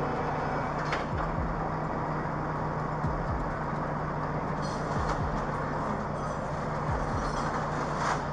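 Steady street traffic noise, with cars passing on the road and a low steady hum underneath. A couple of faint brief clicks come through near the start and near the end.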